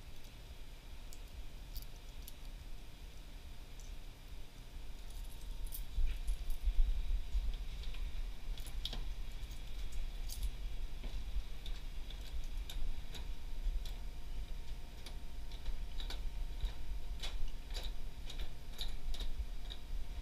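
Keys jingling and scattered light clicks of small hard items being handled, over a low steady rumble; louder from about six seconds in.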